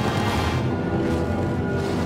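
Dark, dramatic orchestral score with held tones over a low rumble.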